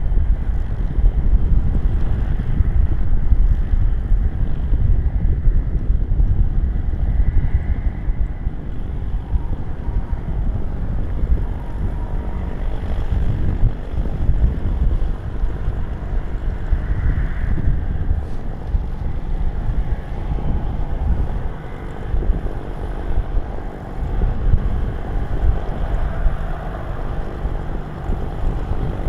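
Strong wind buffeting the microphone: a loud, gusting low rumble that swells and eases throughout.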